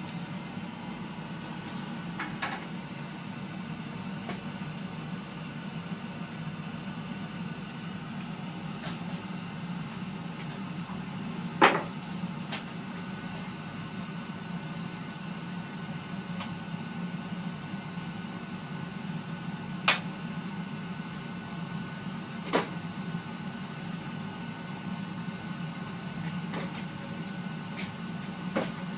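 Carlin EZ-1 gas conversion burner firing under its noise-reducing cover: a steady low hum from its blower and flame. A few sharp clicks stand out, the loudest about twelve and twenty seconds in.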